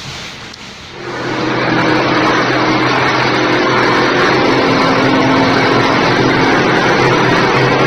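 A wall-plastering machine starting up about a second in and then running steadily: a loud, even mechanical noise with a steady low motor hum.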